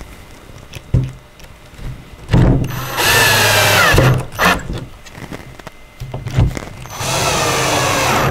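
Cordless drill driving screws into a wooden doll-bed frame: a few handling knocks as the drill is picked up and set on the screw, then two runs of the motor's whine about four seconds apart, the first dropping in pitch as the screw draws tight.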